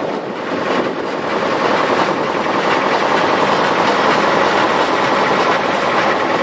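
Motorboat under way: the engine runs steadily under a loud, even rush of noise.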